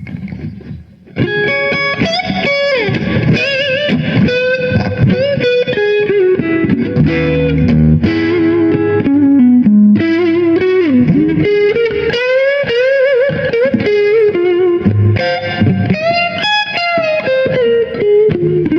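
Electric guitar played through a Donner Boost Killer boost pedal into a Blackstar HT-40 amp, with the pedal's gain set low for a lightly broken-up, crisp blues tone. Blues licks with many string bends and some chords, growing loud about a second in.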